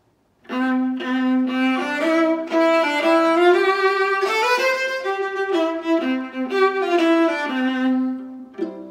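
Viola bowed in a short, slow melody of sustained notes, starting about half a second in and stopping shortly before the end.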